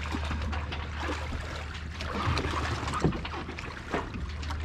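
Water lapping and knocking against a small sailboat's hull, with scattered short knocks over a steady low hum.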